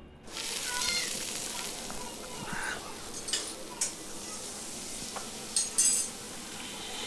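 Food sizzling in a large steel pan while a metal ladle stirs it. The sizzling starts abruptly, and several sharp clinks of the ladle against the pan come in the second half, the loudest two close together near the end.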